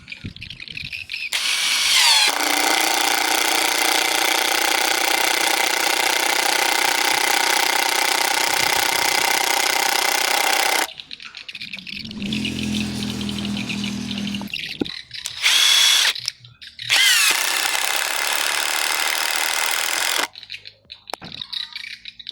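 Cordless impact driver running in bursts. It spins up with a rising whine into a steady run of about nine seconds, goes lower-pitched for a few seconds, then gives a short burst and another run of about three seconds.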